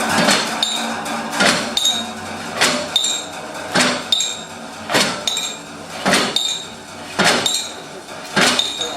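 Hammer blows struck in a steady beat, about one a second, with lighter ringing metallic taps in between, played as percussion.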